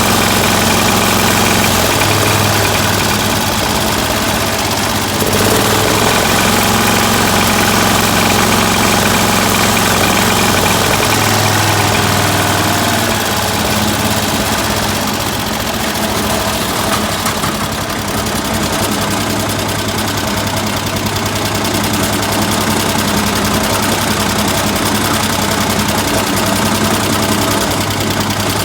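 Freshly rebuilt Kohler K321 single-cylinder engine running with no load, its speed shifting slightly a few times. The rebuild appears to have it running fairly well.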